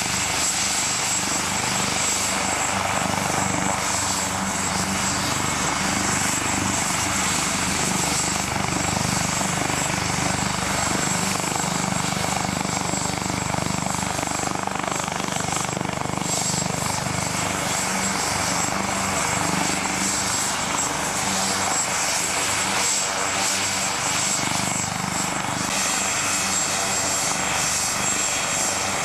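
Turbine helicopter running on the ground with its main and tail rotors turning: a steady rush of rotor and engine noise with a thin high whine held above it.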